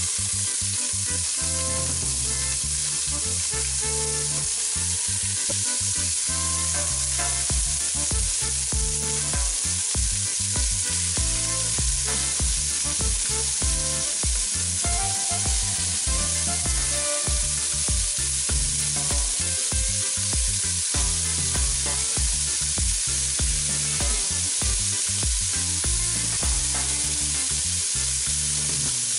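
Sliced onion and chopped red bell pepper frying in hot oil in a stainless steel pot, a steady sizzle that starts suddenly as they hit the oil.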